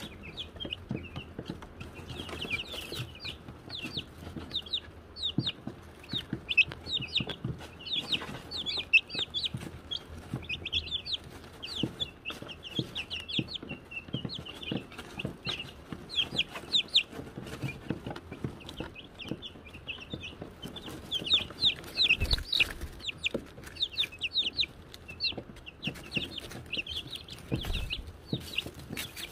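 A brood of Wyandotte chicks peeping continuously: many short, high chirps overlapping one another without a break.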